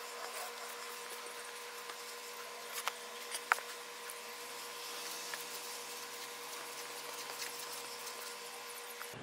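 Faint wet handling sounds as pieces of venison are lifted and moved in a plastic tub of soaking water, with two sharp clicks about three seconds in, over a steady hiss and a faint low drone that falls slowly in pitch.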